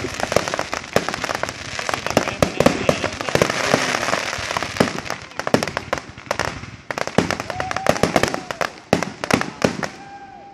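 Aerial fireworks barrage: many shells bursting at once in a rapid, near-continuous run of bangs and pops. The run thins out and gets quieter after about six seconds.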